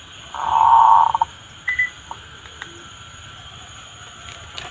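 Zebra dove (perkutut) call played from a small MP3 speaker as a lure: one loud call about a second long, ending in a few quick pulses, then a faint background with a few small ticks.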